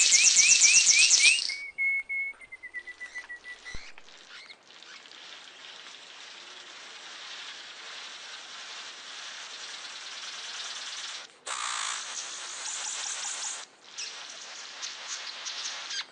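Birds calling: a quick run of repeated rising chirps, then a single held whistle that drops slightly in pitch, followed by a steady high hiss that cuts off and changes abruptly twice.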